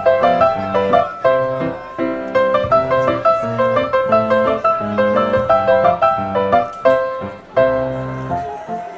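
Background piano music: a light melody of quick notes, several a second.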